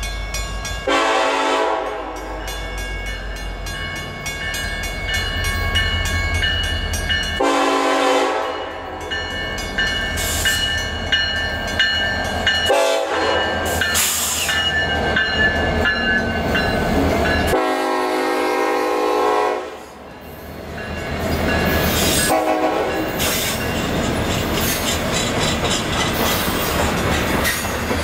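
Horn of a Norfolk Southern EMD SD70ACE diesel locomotive sounded in long, long, short, long blasts, the grade-crossing signal, followed by one brief extra toot, over the low rumble of the locomotives' engines as they approach and pass. After the engines go by, the container flatcars roll past with the clickety-clack and rushing noise of their wheels on the rails.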